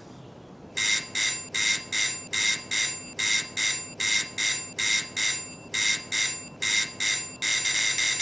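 Electric doorbell ringing in short, quickly repeated bursts as its button is pressed again and again. Near the end it rings on without a break as the button is held down.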